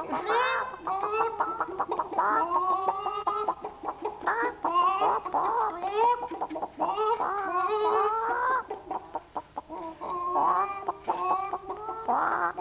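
Chickens clucking in a busy run of short calls, one after another, some of them rising in pitch.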